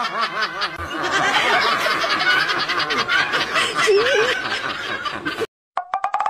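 Overlapping, high-pitched giggling and snickering laughter from several voices, stopping abruptly about five and a half seconds in.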